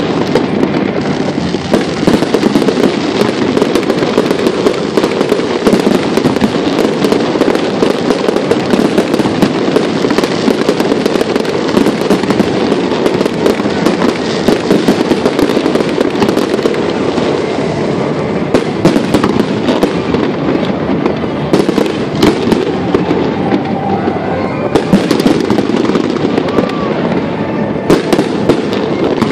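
Aerial fireworks display going off in a dense, continuous barrage of bangs and crackles with no break.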